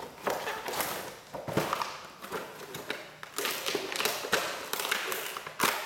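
Irregular rustling and crinkling of plastic toy packaging being handled as an action figure is unpacked, with light taps and clicks and a sharper knock near the end.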